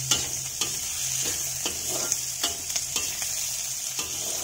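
A long steel spatula scrapes and knocks against a metal kadai about twice a second, stir-frying diced potato, capsicum and onion that sizzle steadily in the hot pan.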